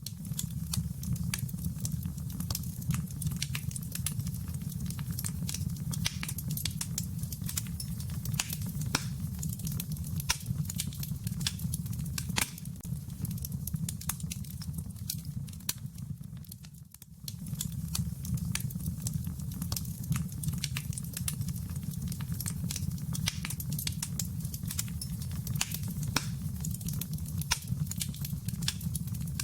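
Crackling fireplace fire: irregular pops and snaps over a steady low rumble, fading briefly a little past halfway.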